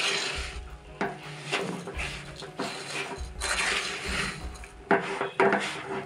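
Silicone spatula stirring and scraping crumbly semolina around a steel pan as it dry-roasts in ghee for halwa, a grainy swish about once a second.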